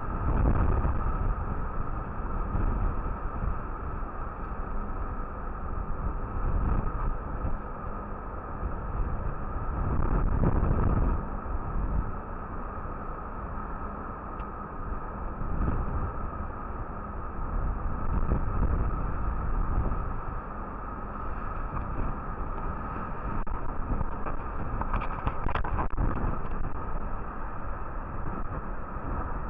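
Rough sea rushing and breaking along the side of a container ship's hull, with wind buffeting the microphone, surging louder every few seconds. A steady hum runs underneath, with a few light clicks near the end.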